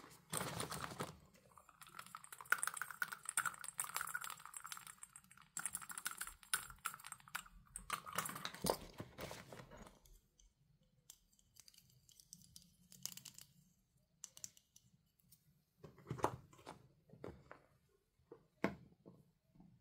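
Crinkling and rustling of a plastic zip pouch as hands rummage among small plastic toy figures inside. About halfway through the rustling stops, and a few light clicks and taps follow as a plastic figure is handled and set down on a plastic box.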